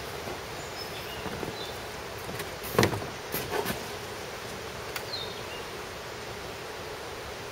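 Produce being handled and packed into a cardboard box: one sharp knock nearly three seconds in and a few softer knocks just after, over a steady outdoor background hiss.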